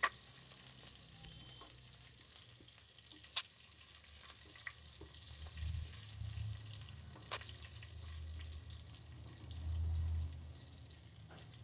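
Green chillies, curry leaves and urad dal sizzling in a spoonful of hot oil in a frying pan, stirred with a wooden spatula that clicks against the pan several times. A low rumble swells in the second half.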